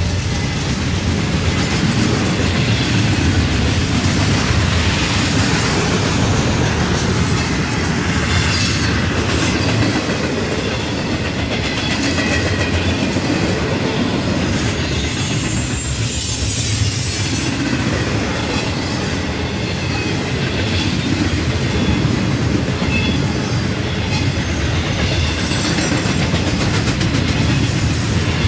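Freight train cars rolling past at speed, a steady rumble with the wheels clicking over rail joints.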